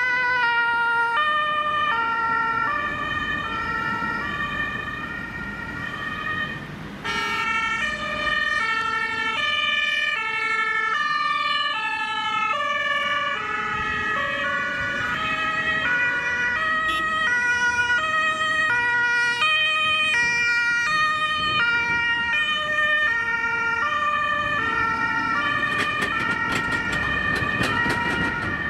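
Ambulance two-tone sirens (German Martinshorn) stepping back and forth between a high and a low note. At times two sirens sound out of step with each other, over the road noise of passing vehicles.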